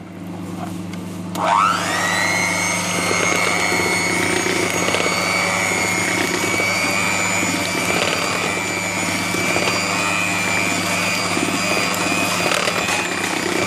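Electric hand mixer switched on about a second in, its motor whine rising quickly in pitch as it spins up, then running steadily as the beaters whisk milk into chocolate cake batter.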